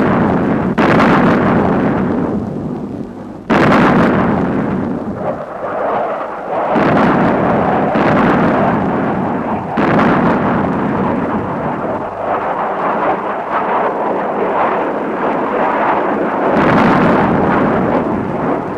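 Battle explosions: a series of loud blasts, a sudden one every few seconds, each trailing off slowly into a continuous noisy din.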